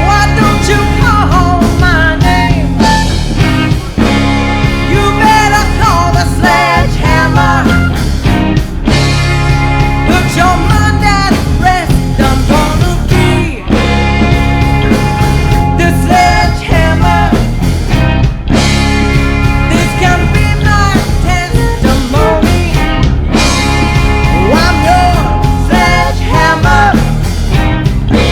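Live rock band playing loudly: a full band with a bending lead melody over sustained bass and a steady drum beat.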